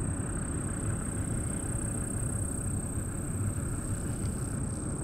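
Steady low rumble with a constant high-pitched drone of insects such as crickets over it.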